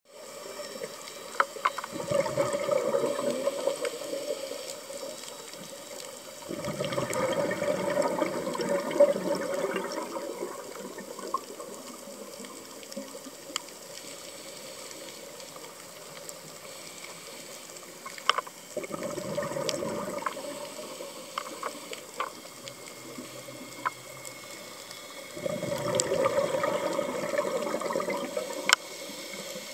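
A scuba diver's regulator breathing underwater: four long bursts of exhaled bubbles several seconds apart, with a steady hiss and scattered sharp clicks between them.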